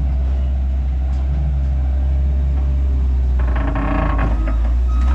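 Heavy diesel machinery running with a steady low drone, and a burst of metallic creaking and clanking from its working parts about three and a half seconds in.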